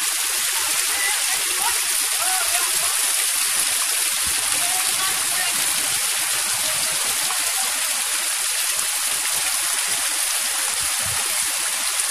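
Torrential rain pouring down in a steady, dense hiss.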